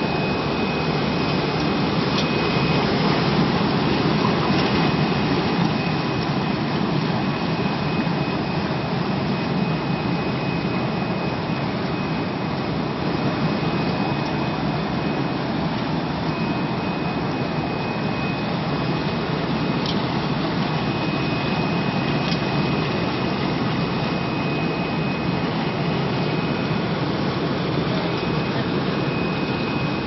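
TPP-LJ-6000 air-bubble fruit and vegetable washing machine running: a steady rush of air blown into the wash tank and the water churning and bubbling, with a faint steady high whine.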